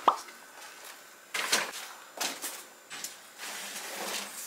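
Paper shopping bags and cardboard boxes being handled and loaded onto a luggage cart: a series of short, irregular rustles, scrapes and knocks.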